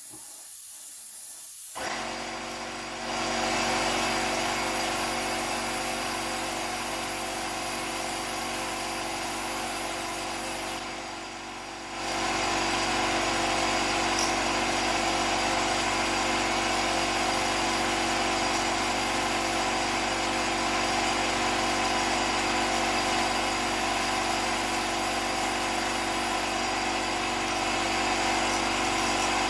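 Airbrush hiss, then an air compressor kicks on about two seconds in and runs steadily, a motor hum with a constant whine that dips briefly about a third of the way in before carrying on.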